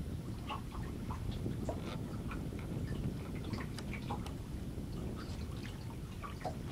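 Small waves lapping at a small wooden sailboat's hull: irregular little plinks and drips over a steady low rumble.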